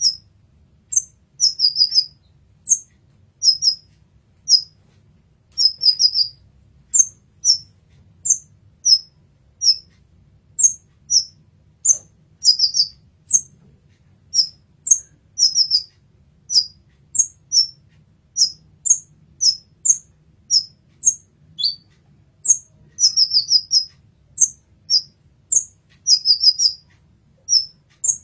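Kolibri ninja sunbird calling, a series of short, very high, thin chirps about once or twice a second, sometimes run together in quick clusters of three or four.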